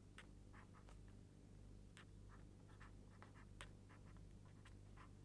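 Faint, quick scratching strokes of writing on a board, with a few sharper taps, over a steady low hum.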